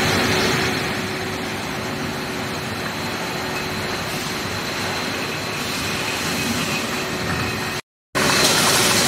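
Beer-bottle conveyor line running: a steady machine hum with a steady high whine over a dense mechanical rush. The sound drops out for a moment about eight seconds in, then comes back a little louder.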